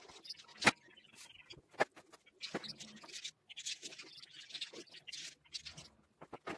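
A metal fork crimping the edge of a cheburek's dough on a wooden table: a few sharp taps of the tines, the loudest about a second in, with soft scraping and rustling between.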